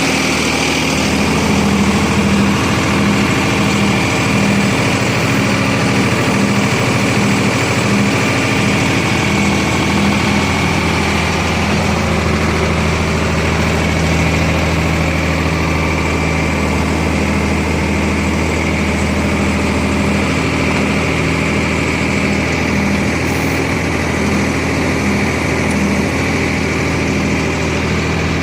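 Diesel engine of a 50 hp Sonalika tractor carrying a backhoe attachment, running steadily.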